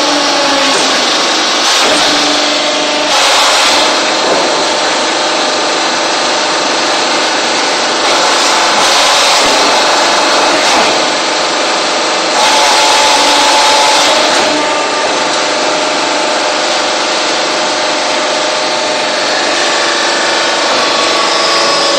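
Hydraulic block-making press running: a loud, steady mechanical din from its electric motor and hydraulic pump, with whining tones that change pitch and loudness several times.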